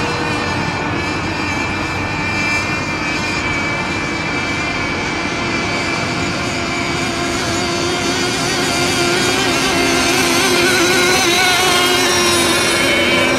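Several radio-controlled race boats running flat out together, their motors making many overlapping whining tones that waver as the boats turn. The sound grows a little louder about two-thirds of the way through.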